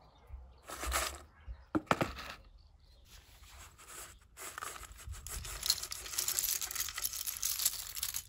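Small plastic toy figures and crinkly wrapper paper rattling and clinking in a metal bowl: a couple of short handfuls with sharp clicks, then a long dense rattle as the bowl is tipped and the figures slide out onto grass, which stops suddenly at the end.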